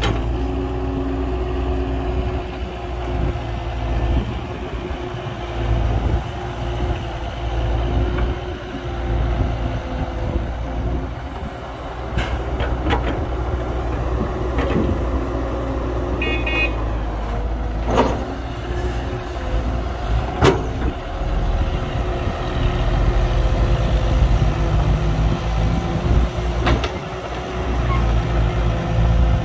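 Heavy diesel earthmoving machinery, an excavator and a dump truck, running steadily with a deep rumble and a constant engine hum. A handful of sharp knocks and one brief high beep about halfway through break into it.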